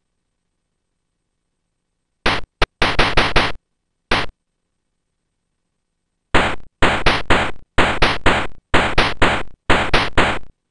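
Electronic hi-hat sample played back by a music tracker: short, crisp noisy hits. A brief irregular cluster comes about two seconds in, then a steady run of hits at about four a second from about six seconds in.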